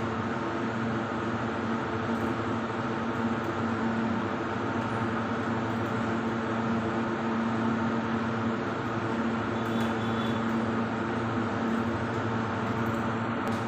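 Steady machine hum: a constant low drone over an even hiss, unchanging throughout.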